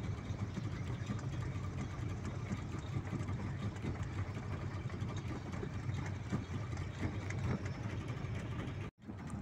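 A boat engine running steadily at low revs, a low even hum. It cuts out for a moment near the end.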